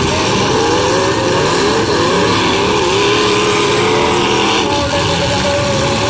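Several demolition derby cars' engines running loudly and revving, their pitch rising and falling as the cars push against each other.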